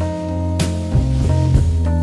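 Background music: a song with guitar, bass and drums keeping a steady beat.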